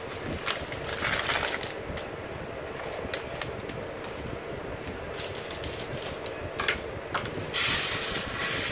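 Dry orzo pasta poured into a disposable aluminium foil pan: about seven and a half seconds in, a loud, steady grainy hiss of small hard grains hitting thin metal. Before it, the paper package is handled, with light crinkling and small clicks.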